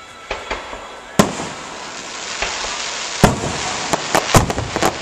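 Aerial fireworks shells bursting: a few scattered bangs, a loud one about a second in, then a quick run of bangs near the end over a rising hiss.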